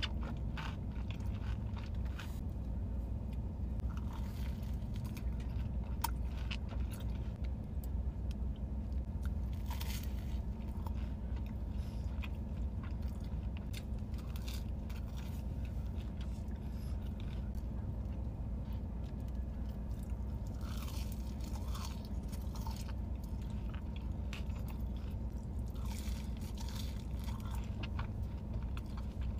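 A person chewing and biting into tacos close to the microphone, with wet mouth sounds from broth-soaked bites and scattered sharp crunches.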